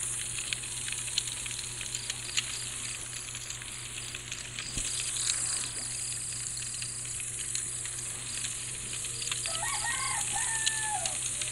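Night camping ambience: crickets chirping in a steady high trill, with a campfire crackling in scattered sharp pops. A short animal call that rises and falls sounds near the end.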